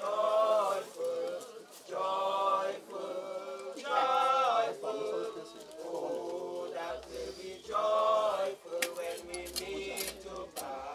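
People singing a hymn together, in long held notes that waver in pitch, with a few sharp clicks near the end.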